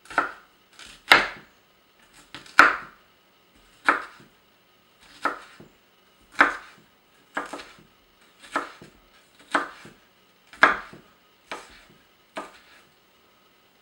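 Kitchen knife dicing red bell pepper on a wooden cutting board: sharp knocks of the blade hitting the board, about one a second.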